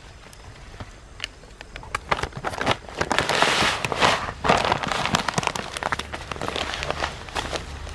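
A large paper sack crinkles and rustles as it is handled. Then granular soil amendment pours from it into a backpack spreader's hopper, a rushing hiss full of crackles starting about two to three seconds in.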